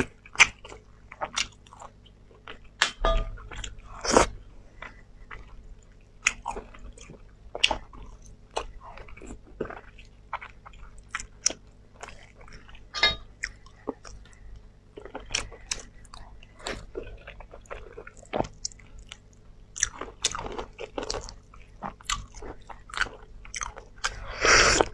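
Close-up eating sounds of someone biting and chewing meat off braised lamb rib bones: many short, irregular bites and chews, with a longer, louder burst near the end.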